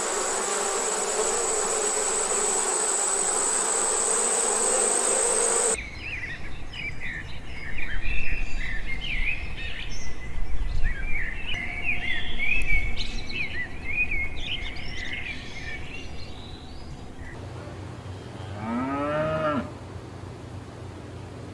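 Animal sounds in three parts. A steady high buzzing hiss for about six seconds cuts off suddenly. Then comes a long run of quick high chirps, and near the end a short animal call that rises and falls in pitch.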